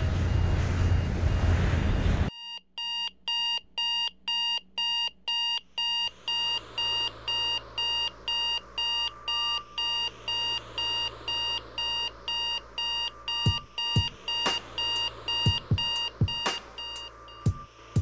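Digital alarm clock beeping in quick even pulses, about three a second, starting after a loud rush of noise cuts off about two seconds in. A low hum joins the beeping, and sharp hits start near the end, shortly before the beeping stops.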